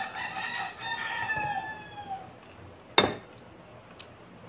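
A rooster crowing once, a held call of about two seconds that falls away at the end. About three seconds in comes a single sharp knock, the loudest sound.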